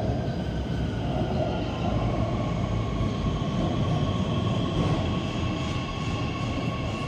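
Shenzhen Metro Line 6 train moving along the platform behind the screen doors: a steady rumble of wheels on rail. About two seconds in, a whine of several steady tones from its traction motors joins the rumble.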